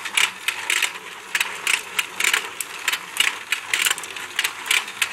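Battery-operated toy fishing game running, its rotating pond mechanism clicking steadily about three times a second.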